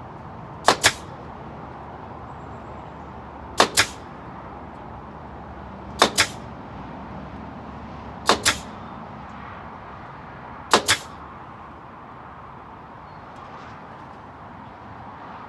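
Pneumatic fastener gun driving fasteners into the hutch's wood five times, each shot a sharp double crack, spaced about two and a half seconds apart.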